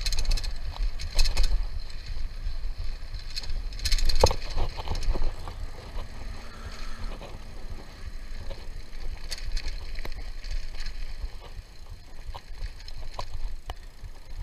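Mountain bike ridden along a dirt trail: wind rumbling on the microphone, with the bike rattling and clattering over bumps, loudest about a second in and again about four seconds in.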